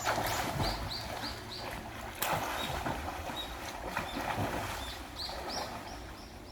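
Water splashing and sloshing in a stream, with a sharp splash at the start and another about two seconds in. Short high chirps repeat about three times a second near the start and again near the end.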